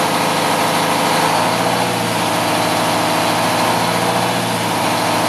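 2001 Mack CH613 tractor's diesel engine idling steadily.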